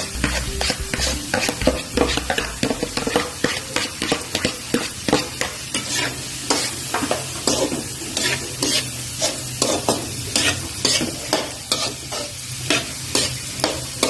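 Chopped onions sizzling in melted butter in a frying pan, with a spatula scraping and stirring them in short strokes, several a second.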